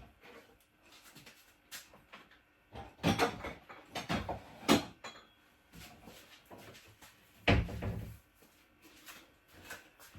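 Kitchen clatter as things are moved about and put away: a few knocks and bumps, with a heavy thump about seven and a half seconds in.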